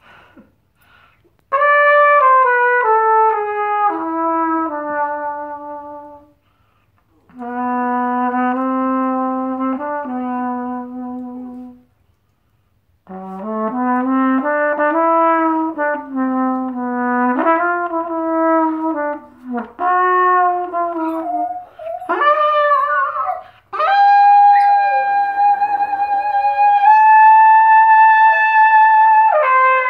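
Solo trumpet improvising a slow blues in phrases with short gaps between them: a falling run, two held low notes, a longer run, then a long high note held near the end.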